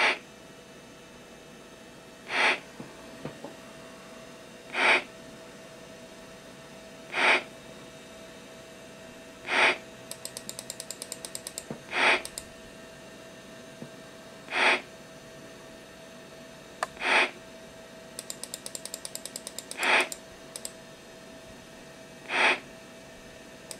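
A short burst of noise from a Macintosh SE/30's speaker repeating about every two and a half seconds, the sound effect of a program animation that loops endlessly, over the computer's steady faint hum. Twice, a quick run of light clicks as the text scrolls.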